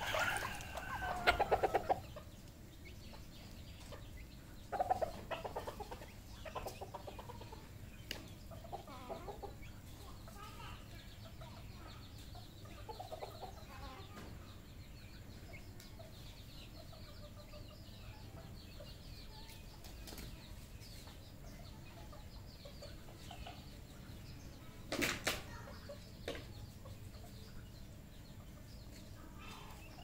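Red junglefowl clucking in short calls, loudest in the first couple of seconds and scattered through the first half, with one brief sharp knock later on.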